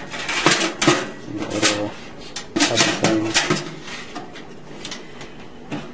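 A toaster oven's thin metal baking tray clattering and scraping against the oven's wire rack as it is handled and slid in, with several sharp rattles and a few short ringing squeaks in the first three seconds or so, then only faint handling.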